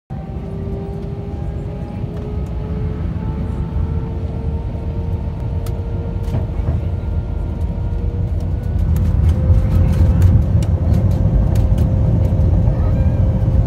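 Airliner engines spooling up for takeoff, heard from inside the cabin: a deep rumble with a slowly rising whine that grows louder as the plane starts to roll. From about halfway through, light clicks and rattles come in over it.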